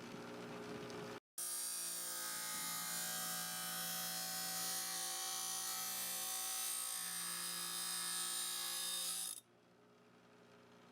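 Electric grinder running with a steady high motor whine, stopping abruptly about nine seconds in.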